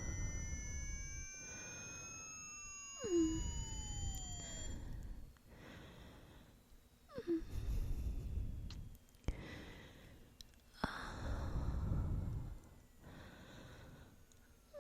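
Sound collage: several pure test tones sliding up and down in pitch through the first five seconds, the kind of sweep used to test headphone treble, layered over deep breathy sighs that swell about every three to four seconds. Twice a short whistle drops sharply in pitch.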